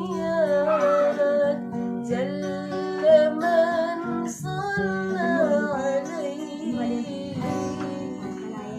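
Music: a voice singing a drawn-out, ornamented devotional melody over acoustic guitar accompaniment.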